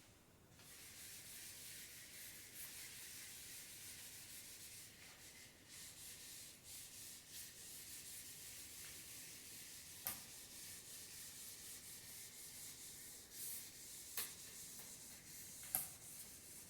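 Faint scratching and rubbing of a pen on paper, with a few light clicks.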